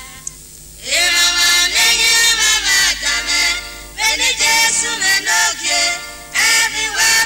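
Singers performing a traditional Benin (Edo) song with instrumental accompaniment; after a brief lull the voices come in about a second in and carry on in short phrases.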